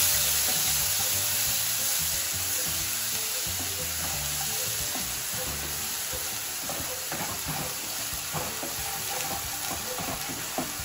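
Onion paste frying in hot mustard oil in a nonstick kadai: a loud sizzle that slowly dies down as the paste is stirred. Scrapes of a spatula against the pan come in during the second half.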